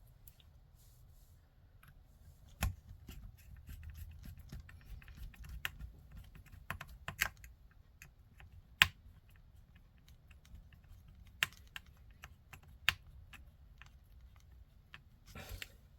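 Small plastic and metal kit parts and tools handled on a workbench during RC car chassis assembly: scattered light clicks and knocks, a few sharper taps, and a brief rustle near the end.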